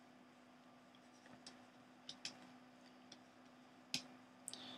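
Faint, irregular clicks and taps of a pen stylus on a tablet during handwriting, over a faint steady hum.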